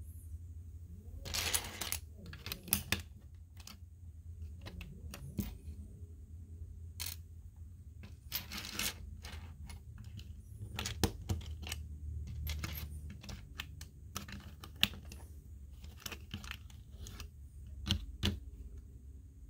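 Plastic Lego pieces clicking and clattering as they are handled and pressed together, in irregular sharp clicks, with a few short rustling bursts.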